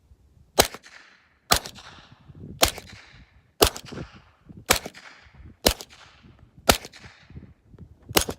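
Suppressed pistol shots from subsonic reloads through Rugged Obsidian suppressors, fired about once a second, with the last two in quick succession near the end. Each shot is a sharp crack with a short echoing tail.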